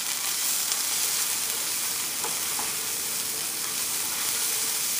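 Tomato paste and ground spices frying in olive oil in a frying pan, sizzling steadily while a spatula stirs it, with a couple of faint scrapes of the spatula against the pan about two seconds in.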